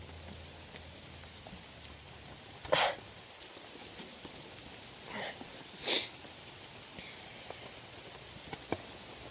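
Steady rain falling, with two short bursts of hiss about three and six seconds in and a few light ticks near the end.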